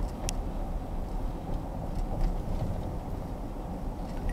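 Steady low road and engine rumble inside the cab of a 2015 Chevrolet Silverado 1500 with the 6.2-litre V8, cruising on wet pavement. A light click comes about a third of a second in.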